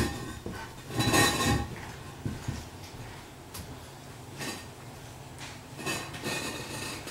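New porcelain toilet being lowered over the closet bolts and set down on the wax ring: a short scrape about a second in, then a few light knocks and clinks as the bowl settles.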